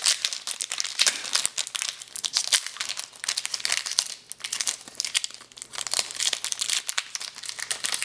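Basketball card pack wrappers crinkling and being torn open as the packs are handled: a dense, irregular run of crackles.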